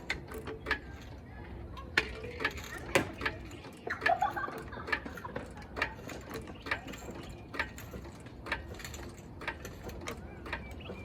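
Irregular metallic clicking of a hand-worked ratcheting mechanism, about one to two clicks a second, with a brief rising squeak about four seconds in.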